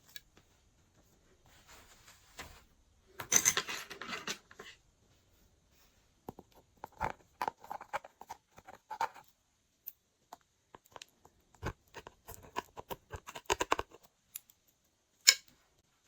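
Glossy slime being worked by hand, giving bursts of sticky clicking and crackling in several separate spells, with one sharp click near the end.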